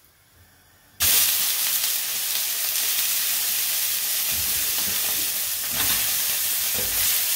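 Steak sizzling in oil on a hot ridged griddle pan, a steady loud hiss that starts abruptly about a second in. In the second half a few low knocks come as a spatula presses on the steak.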